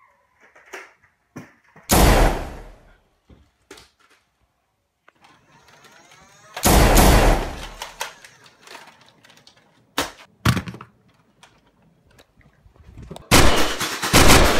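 Four loud bangs at irregular intervals, each fading out over up to a second, with quieter knocks and thumps between them.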